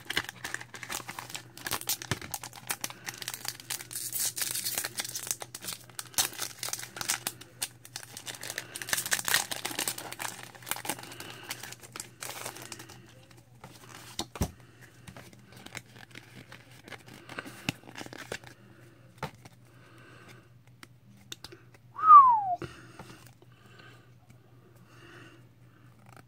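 Pokémon booster pack's foil wrapper being torn open and crinkled, dense and noisy for the first half, then sparser clicks of the cards being handled. About 22 seconds in comes a short falling squeak, the loudest sound. A low steady hum sits underneath.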